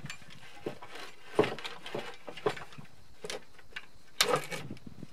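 Scattered metallic clicks, taps and knocks from hands and parts working on a disassembled portable generator's alternator end, the sharpest knock about one and a half seconds in and a short cluster of clanks near the end.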